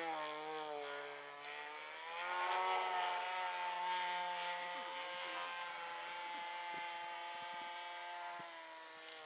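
Small engine of a radio-controlled model airplane in flight, running steadily with a pitched drone. The pitch dips in the first second, climbs about two seconds in, then holds steady.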